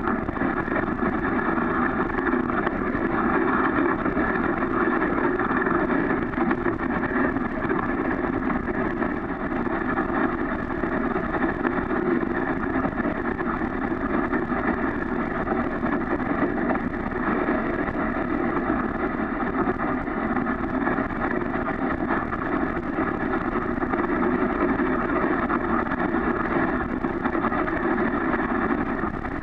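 Steady rushing noise of a dog sled running over wet snow behind a team of Siberian huskies, heard muffled through the camera's waterproof case.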